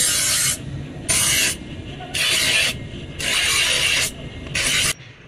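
Steel knife blade ground against a spinning abrasive grinding wheel: a loud grinding hiss, then four shorter passes as the blade is lifted off and pressed back about once a second, cutting off suddenly near the end.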